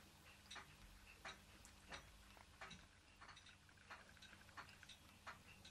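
Ross Yoke low-temperature Stirling engine running very slowly on a mug of hot water, ticking faintly and evenly about three times every two seconds.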